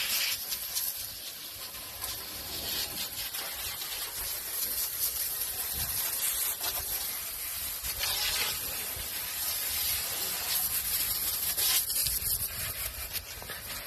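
Water hose spraying into the hopper of a gunite machine, rinsing out leftover concrete: a steady spray of water with several louder surges as the jet is moved over the metal.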